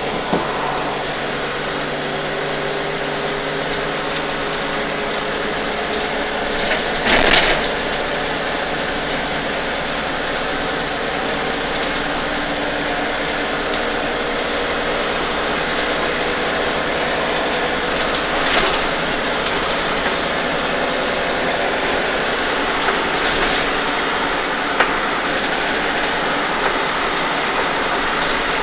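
Steady engine and road noise heard from inside a moving vehicle's cabin, with a couple of sharp knocks, about seven seconds in and again near the middle.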